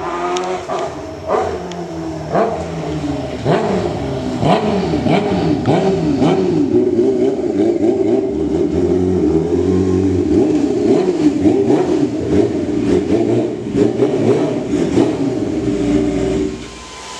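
Car engines revving again and again, the pitch sweeping up and falling back many times with several sharp pops mixed in. The sound drops away near the end.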